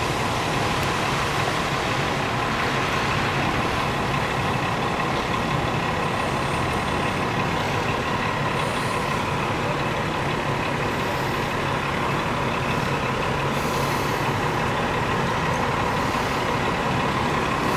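A fire engine idling steadily with an even hum, mixed with water rushing out of a sheared-off fire hydrant as its flow is shut down.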